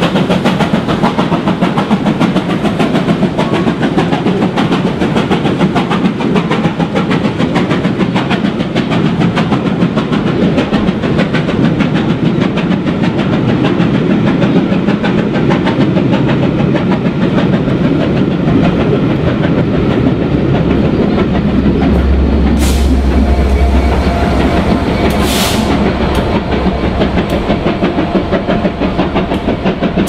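Passenger coaches of a steam-hauled train rolling past, their wheels clattering steadily over the rails. About two-thirds through, a low engine hum joins in as the diesel locomotive at the rear of the train draws near, with two brief high hisses.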